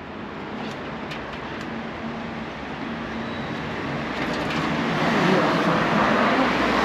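A vehicle approaching on the street: a steady rush of noise that grows gradually louder and is fullest near the end.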